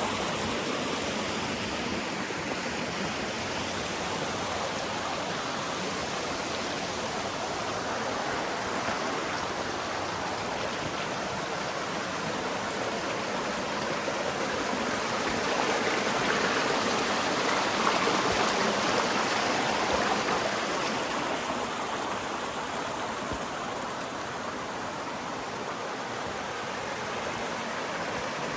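Water of a stream rushing steadily, swelling a little louder for a few seconds past the middle.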